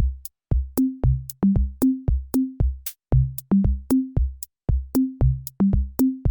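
Electronic background music: a drum-machine beat of sharp hits and short bass notes, about four hits a second.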